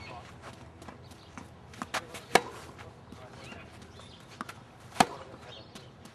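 Tennis ball struck hard by a racket twice, about two and a half seconds apart, each sharp pop shortly after a softer knock of the ball bouncing on the court.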